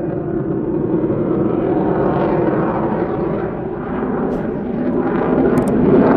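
Jet noise from an F-35A Lightning II's single F135 turbofan engine as the fighter flies past in a display, a dense rushing roar that grows louder toward the end.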